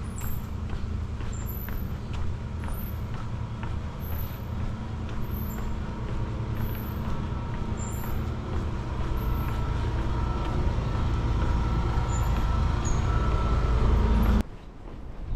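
A motor vehicle's engine running close by, a steady low rumble that grows louder toward the end and then cuts off abruptly.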